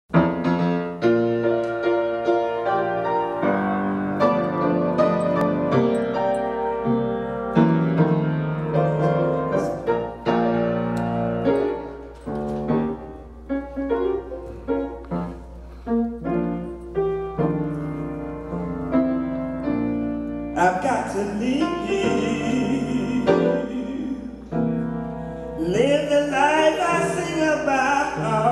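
Grand piano playing a slow gospel introduction. About twenty seconds in, a woman's singing voice joins the piano, sliding between notes.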